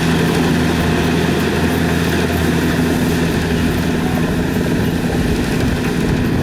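Kubota DC-70 combine harvester's engine running steadily at a constant pitch, with the machine's mechanical hum.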